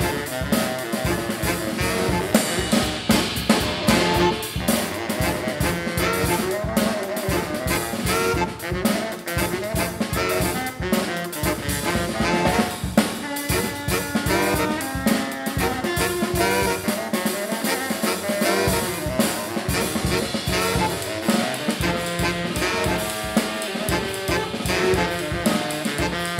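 A saxophone ensemble, baritone sax among them, playing a jazz-funk tune over a drum kit beat.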